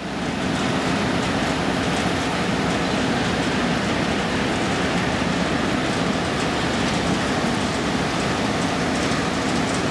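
Steady rushing of wastewater flowing through a treatment plant's concrete inlet channels.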